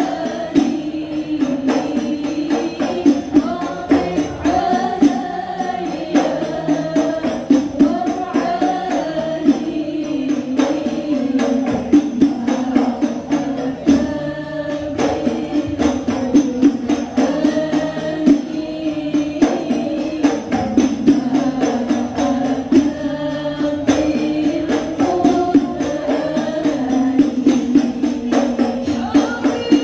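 A group of women singing Islamic devotional verses (sholawat) together in unison, accompanied by a steady, busy beat of hand-struck frame drums.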